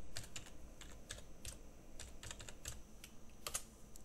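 Computer keyboard being typed on: a run of about a dozen quick, irregular key clicks, typing a short name ("dark gray") into a text field.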